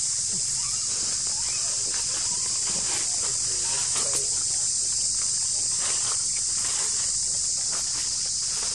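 Steady high-pitched drone of an insect chorus, with faint scattered rustles and clicks.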